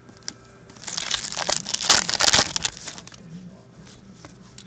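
Foil wrapper of an SPX hockey card pack crinkling and tearing as it is ripped open, lasting about two seconds from about a second in.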